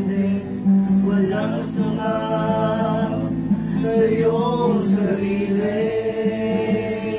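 Male voices singing a hymn, the church's opening song, to a strummed acoustic guitar.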